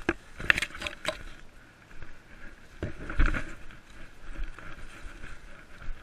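Footfalls and the rustle and swish of plants brushing past as a runner pushes through dense forest undergrowth. There are sharp crackles in the first second and a louder burst of trampling around three seconds in.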